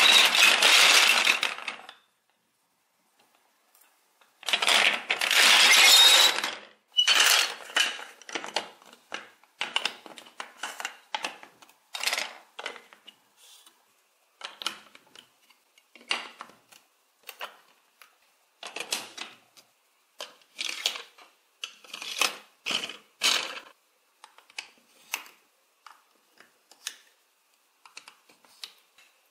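Large plastic building bricks, beams and gears rattling as hands stir through a heap of them, twice near the start. Then a long run of separate plastic clicks and knocks as bricks are pressed together and gears and wheels are fitted onto an axle.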